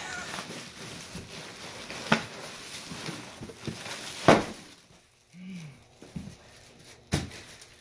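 Plastic packaging crinkling and rustling as a bagged supercharger is handled and unwrapped in its cardboard box, with a few sharp crackles, the loudest about four seconds in.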